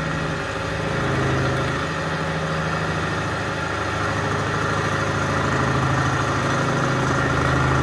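Milling machine running steadily with its cutter machining a motorcycle wheel hub clamped on a rotary table: an even machine hum with a steady whirr and no pauses.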